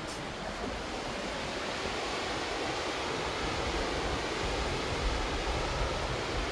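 Steady rush of flowing water from a mountain stream, with wind rumbling on the microphone.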